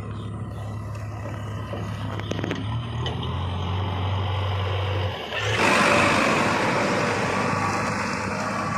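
Heavy diesel machinery working: a steady low engine hum, then about five and a half seconds in a sudden, louder, harsher rush of noise that keeps on.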